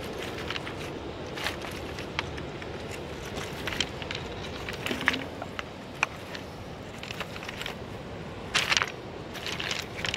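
Footsteps on a shingle beach of rounded pebbles, the stones clacking and crunching irregularly underfoot, with a louder run of clacks about eight and a half seconds in, over a steady low rushing noise.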